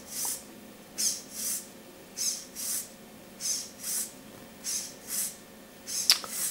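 Dynamixel servos in a robot leg whirring in short, high-pitched bursts as the leg cycles through its stepping motion. The bursts come in pairs about half a second apart, and each pair repeats roughly every second and a quarter. There is one sharp click near the end.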